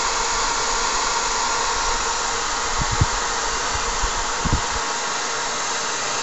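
Hair dryer running steadily, blowing hot air. Two or three light handling knocks come about halfway through.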